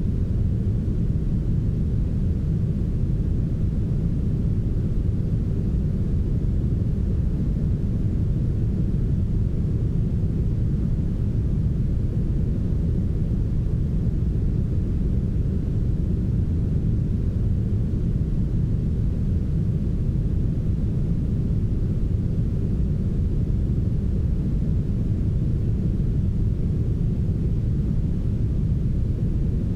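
Steady brown noise: a constant, deep rumbling hiss with its energy in the low end and little above.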